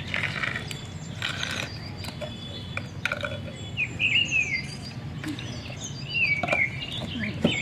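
Small birds chirping on and off, with brief rustles and scrapes from a cardboard box and plastic toys being handled, mostly in the first two seconds.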